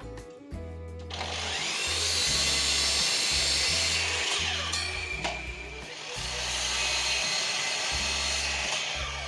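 A power tool working wood, in two long passes of about four and three seconds with a short break between, over background music.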